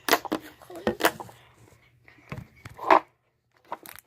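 Slime being squeezed and poked by hand, giving an irregular run of sharp, sticky clicks and pops.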